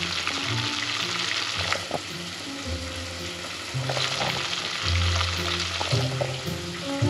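Hot deep-frying oil sizzling steadily in a steel pot, with a low bass line of background music underneath.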